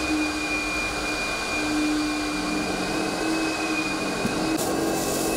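Carpet extractor's vacuum motor running steadily as its wand is drawn over the carpet: a steady whine over a rushing hiss, the hiss turning brighter near the end.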